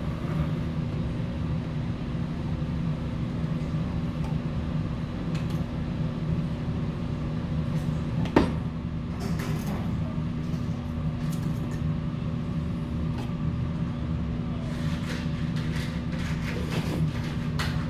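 Steady mechanical hum with a constant low tone, with one sharp knock about eight seconds in. Near the end come short sips and slurps of soup from a spoon, with light clinks.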